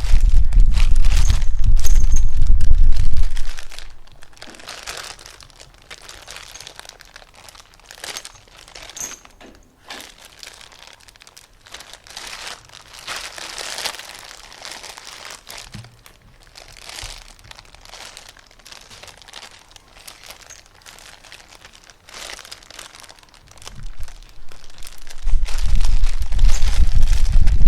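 Crinkly material crumpled and crinkled in short, irregular bursts. A loud low rumble sits under it for the first three seconds or so and again near the end.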